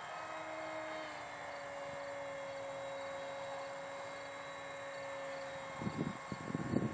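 Electric motor and propeller of a radio-controlled model jet whining steadily in flight at a distance, the pitch dropping slightly about a second in. Near the end, wind gusts buffet the microphone.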